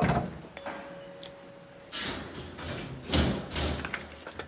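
Metal clunks and clatter as an oily Rolls-Royce Meteor V12 rocker camshaft assembly is set down in the steel wire basket of a parts washer. One loud knock comes at the start and a run of knocks about two to three and a half seconds in.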